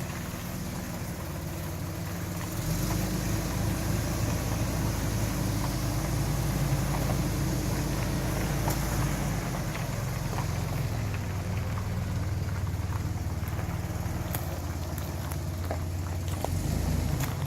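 Boat motor running at low speed with a steady low hum, its note shifting about two and a half seconds in and again around ten seconds in, as the boat is manoeuvred into its berth.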